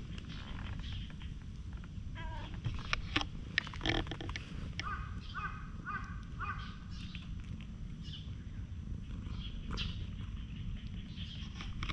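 A bird calls four or five times in quick succession over a steady low rumble, with a few sharp taps and rustles shortly before.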